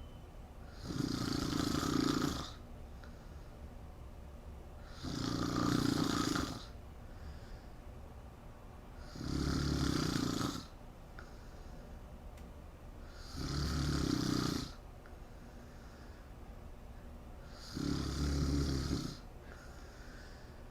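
A woman snoring loudly in a steady rhythm: five rough snores of a little over a second each, about every four seconds, with faint breaths between them.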